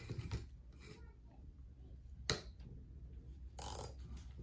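Small clicks and rustles of handling as a flat wooden stick is fitted onto the bit of a cordless drill that is not running, with one sharp click a little past the middle and a brief rustling scrape near the end, over a faint low hum.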